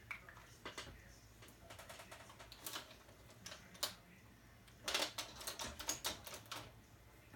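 Irregular light clicks and taps of small drawing tools being handled at the edge of the desk, coming thickest about five seconds in.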